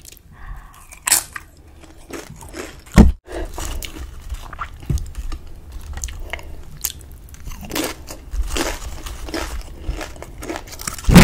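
Close-miked crunching of nacho tortilla chips being bitten and chewed, a run of crisp cracks over the chewing. A single dull bump about three seconds in, and a loud crunch near the end.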